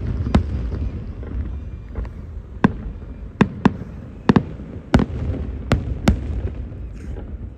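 Aerial fireworks bursting overhead: about ten sharp bangs at irregular intervals, over a continuous low rumble.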